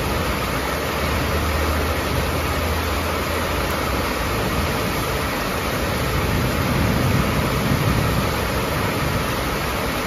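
Heavy rain falling steadily on a corrugated sheet roof and the yard around it, an even hiss. A low rumble swells and fades between about six and eight seconds in.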